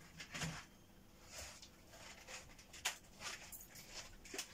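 Faint, scattered clicks and rustles of objects being handled, as a keyboard is fetched.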